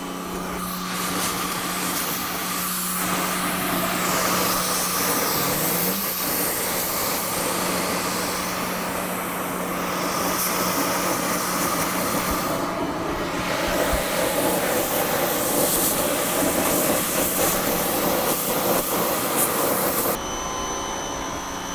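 Pressure washer jet spraying against car trim to blast off plasti-dip coating: a loud, steady hiss that shifts as the jet moves, with the machine's motor humming underneath. The spray cuts off abruptly near the end.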